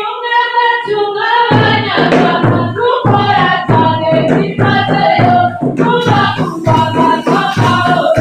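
A group of voices singing a Rwandan intore (umuhamirizo) dance song, joined about a second and a half in by a heavy, regular pounding beat.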